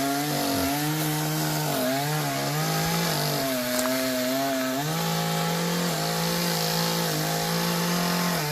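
Chainsaw cutting into a large tree branch, its engine running high with the pitch sagging and recovering several times as the chain bogs under load in the cut, then holding steady for the last few seconds.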